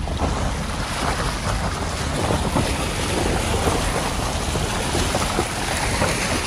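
Loud, steady rush of a fast mountain river in flood, with wind buffeting the microphone.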